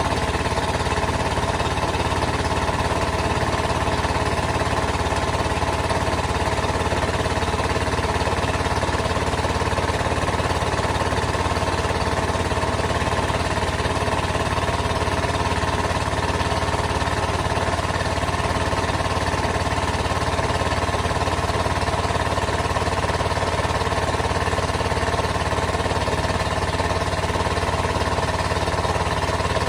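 1940s Caterpillar D13000 six-cylinder diesel engine running steadily at an even speed.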